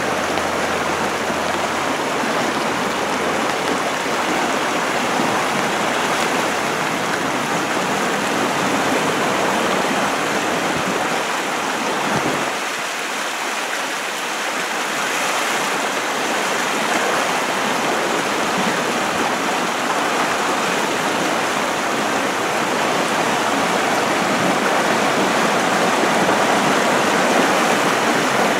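Steady rushing of the flooded River Wye, a broad, even roar of fast-flowing high water.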